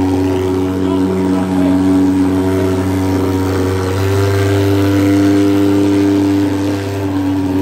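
Portable thermal mosquito fogging machine running steadily as it sprays insecticide fog, its pulse-jet engine giving a loud, even drone whose pitch steps up slightly about halfway through.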